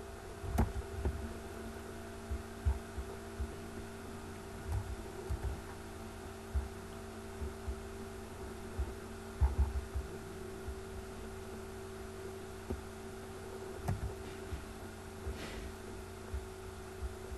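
Steady background hum made of several constant tones, with short dull low thumps at irregular intervals, a few of them louder, as around two and nine to ten seconds in.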